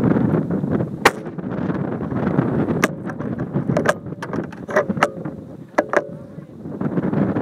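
Strong wind buffeting the microphone with a steady low rumble. One sharp crack comes about a second in, and several lighter clicks follow in the middle.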